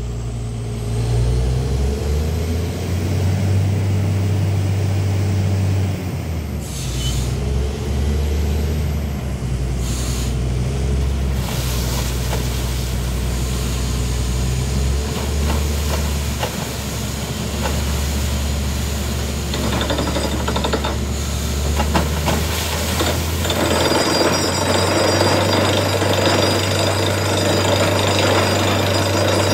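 Truck-mounted borewell drilling rig running under load, its engine droning steadily while the drill works down the cased bore. Near the end a harsher, denser rattle comes in over the drone, as the hammering at the drill bit picks up.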